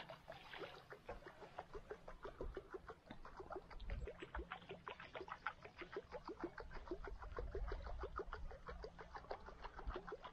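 Fishing reel being wound steadily during a lure retrieve, giving a fast, even run of clicks.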